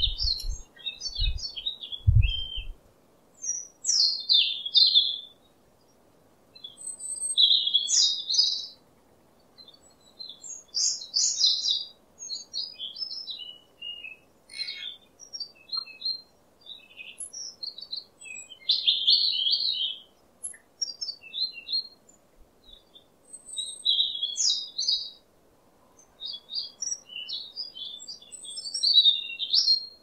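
Songbirds singing in the wild: short warbling, chirping phrases a second or two long, repeated every few seconds with brief pauses between, over a faint steady hiss. A few low thumps sound in the first couple of seconds.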